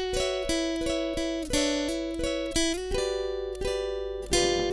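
Background acoustic guitar music: single plucked notes, a couple a second, each ringing and fading in a steady melodic line.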